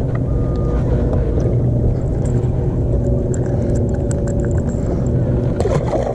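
Steady low rumble, with light clicks and rattles as a caught bass is handled and unhooked, then a splash near the end as the fish is dropped back into the water.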